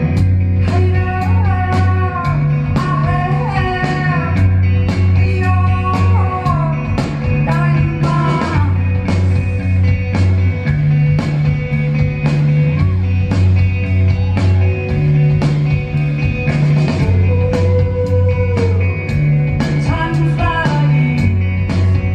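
Live rock band playing: a woman singing in stretches over electric guitar and steady drums, with a low two-note figure that switches about every two seconds.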